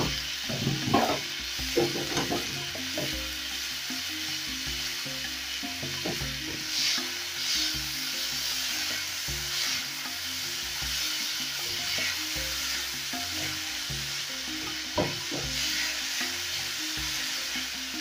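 Chopped onions, tomatoes, garlic, ginger and coriander stems sizzling in hot oil in a non-stick frying pan as they are stirred with a silicone spatula: a steady frying hiss with scraping strokes of the spatula, louder in the first couple of seconds.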